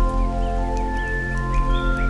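Slow ambient new-age music of long held tones over a deep drone. Faint rain ticks and short high chirps are mixed in.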